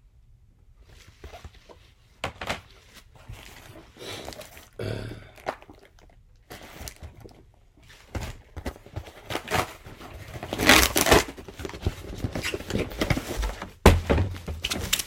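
Handling noise from plastic graded-comic slabs and their packing: scattered knocks, scrapes and rustling. It grows busier and louder in the second half, with one sharp click near the end.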